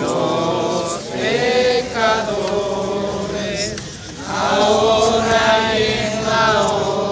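A group of voices singing a religious hymn together in unison, phrase by phrase, with a short break about four seconds in.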